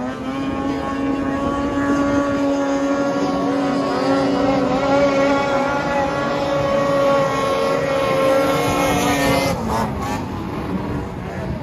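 Racing snowmobiles' two-stroke engines held at high revs as the sleds skim across open water, a steady whine whose pitch wavers slightly. The whine drops away about two seconds before the end.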